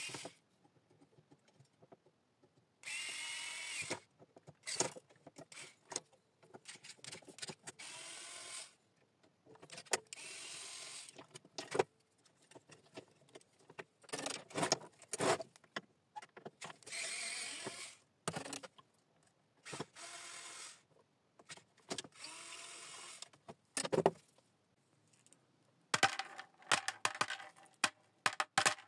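A small electric screwdriver runs in short bursts of about a second each, backing screws out of a three-phase electricity meter. Between the bursts, small brass screws click and rattle as they drop into a tray, with a quick run of clicks near the end.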